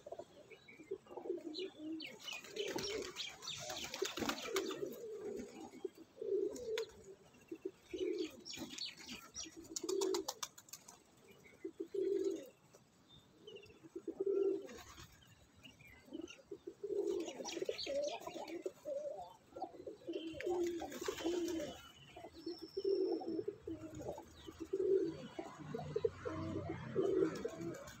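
A large flock of domestic pigeons cooing, low coos repeating every second or so, with a few flurries of wing flapping.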